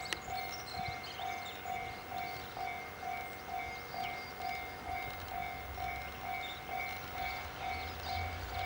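Railway level-crossing warning bell ringing in an even repeating ding, about two strikes a second, as the KiHa 189 diesel train pulls away. A low train rumble swells near the end.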